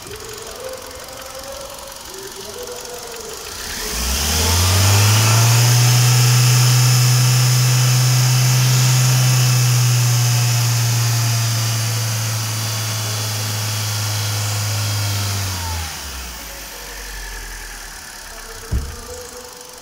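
2011 Hyundai i20 engine idling, then revved up about four seconds in and held at a steady high speed for about ten seconds before dropping back to idle. A single sharp thump near the end.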